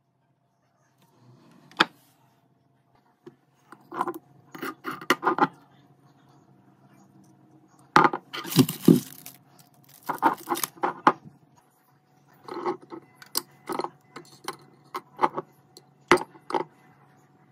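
Glass mason-jar blender cup and its plastic lid being handled: scattered clinks, knocks and clatters of glass and plastic as the jar is lifted off the blender base and a straw lid is fitted. The loudest clusters come about eight and ten seconds in.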